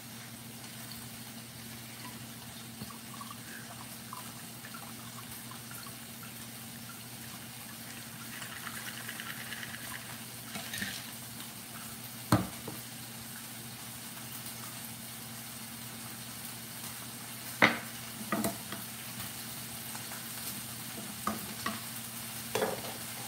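Garlic and broccolini sizzling steadily in a frying pan, with a few sharp knocks and clinks of a glass and shaker set down on a wooden cutting board about halfway through and near the end.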